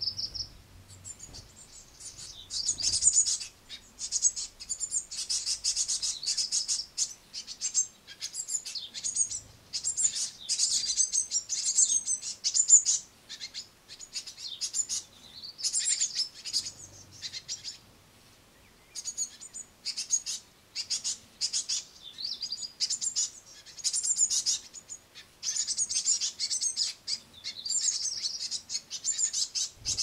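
Fledgling great tits begging for food: rapid, high-pitched chirping in repeated bursts, with a short lull a little past the middle.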